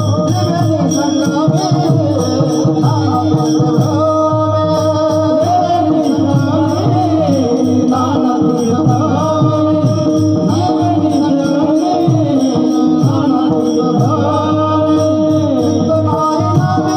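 Devotional kirtan music: voices singing an abhang over sustained instrument tones, with a steady jingling beat running through.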